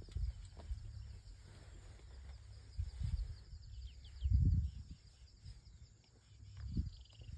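Open-air savanna ambience: wind buffets the microphone in irregular low rumbling gusts, the strongest about four and a half seconds in, over a steady high-pitched chirring of insects and a few short bird chirps.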